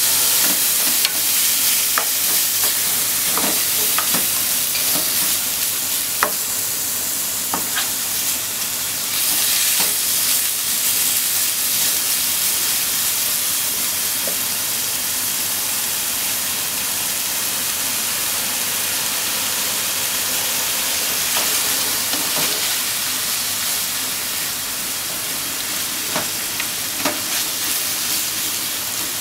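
Ground pork sizzling in a nonstick frying pan, a steady frying hiss, as a spatula stirs and breaks it up, with scattered scrapes and taps of the spatula against the pan, most in the first few seconds and again near the end.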